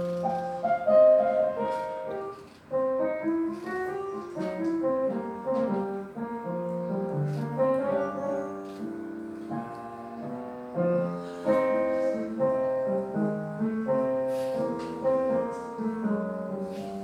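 A groovy instrumental tune led by keyboard, with a melody moving over chords and light percussion ticks.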